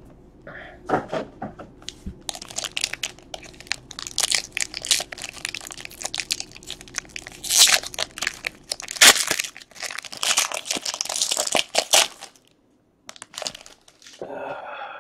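Foil trading-card pack wrapper crinkling and tearing as it is pulled open by hand. It makes a dense run of crackles for about ten seconds, then stops.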